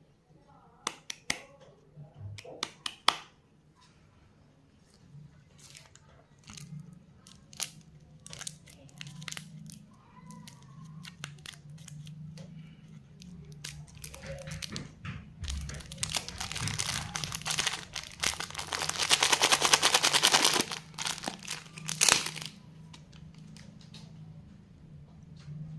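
Plastic lollipop wrappers being handled and torn open, crinkling: scattered clicks and taps at first, then a long dense stretch of crinkling about two-thirds of the way through. A faint low hum runs underneath.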